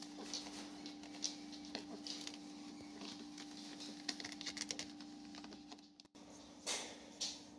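A two-week-old puppy's paws scratching and scrabbling on a quilted pad and foam as it crawls, a quick patter of small soft scrapes, with two louder rustles near the end over a faint steady hum.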